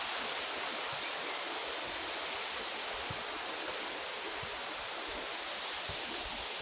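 Waterfall rushing: a steady, even roar of falling water with no change in level.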